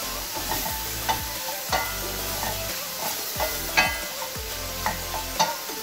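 Sliced mushrooms sizzling in butter in a stainless steel frying pan, stirred with a wooden spoon that knocks and scrapes against the pan several times.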